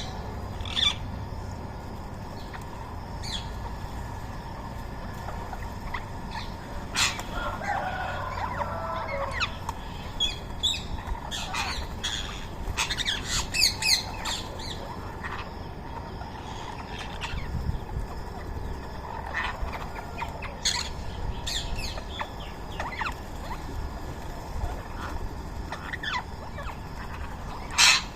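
Rose-ringed parrots giving short, sharp calls at irregular intervals, thickest about halfway through, with one loud call near the end, over a steady low background rumble.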